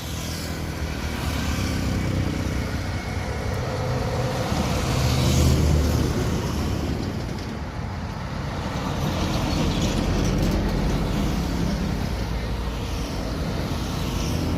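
Motor vehicle engines running steadily, growing louder about five seconds in and again around ten seconds in.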